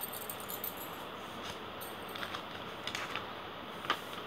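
Newspaper sheets being lifted and handled, with a few faint paper crackles and light ticks over a steady low hiss.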